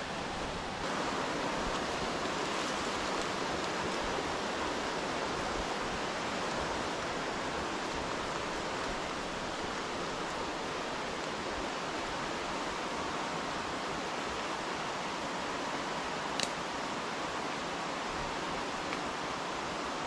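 Steady rushing of a waterfall, an even unbroken noise. A single faint click about sixteen seconds in.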